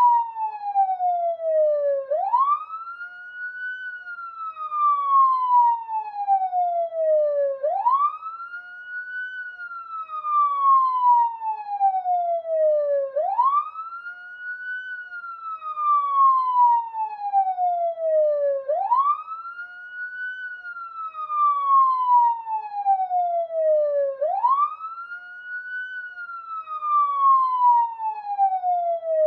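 Police siren wailing in a steady repeating cycle: the pitch climbs quickly for about a second and a half, then falls slowly for about four seconds, again and again.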